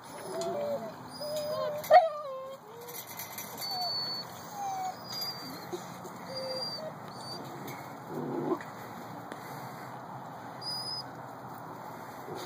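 Young Lab/Shepherd mix puppies whining and yipping in the first couple of seconds, with one sharp yelp about two seconds in and a short lower grunt or bark later. Small birds chirp now and then in the background.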